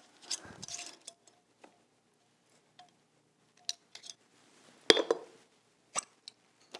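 Light clinks and taps of glassware and bar tools as spirits are measured into a cocktail shaker, with a louder clink about five seconds in and another a second later.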